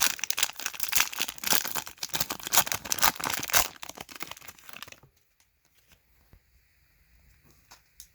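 Wrapper of a trading-card hanger pack being torn open and crinkled, a dense crackling for about five seconds that then stops, leaving only a few faint clicks.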